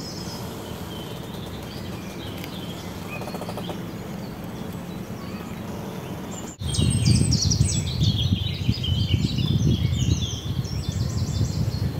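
Small birds chirping and singing, faint at first. About six and a half seconds in the sound cuts to a louder section with busier birdsong over a low rumbling noise.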